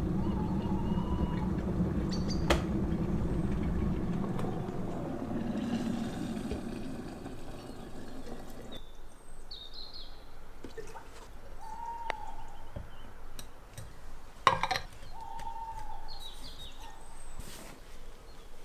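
Electric kettle rumbling steadily as it heats, stopping abruptly about nine seconds in. Hot water is then poured into a stainless steel vacuum flask while birds chirp, with one sharp knock about two-thirds of the way through.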